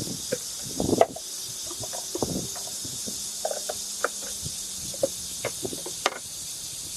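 Steady high-pitched outdoor hiss with scattered light rustles and taps, and one sharper knock about a second in.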